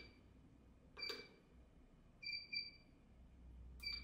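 Bench power supply giving short electronic beeps, each with a click, as its knobs and front-panel buttons are pressed: one about a second in, two close together a little past halfway, and one near the end. They are key-press confirmation beeps while the output current is being set to 2 A.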